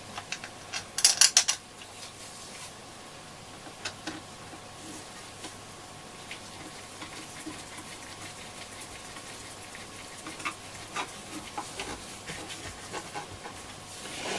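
Screwdriver and small screw clicking against the radio's case as a screw is driven home and tightened, with a quick run of sharp clicks about a second in, then scattered faint ticks of handling.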